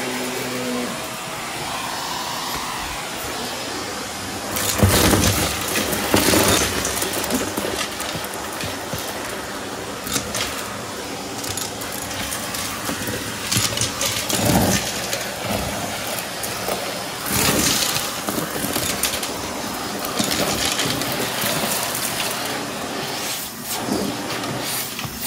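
Shark vacuum running steadily through its bare wand on carpet. Several loud rattling bursts come about five, six, fourteen and seventeen seconds in, as debris is sucked up the tube.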